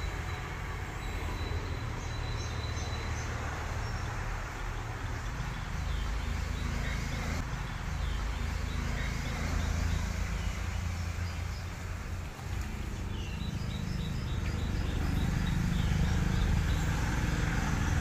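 Steady low outdoor rumble with faint, scattered chirps of small birds.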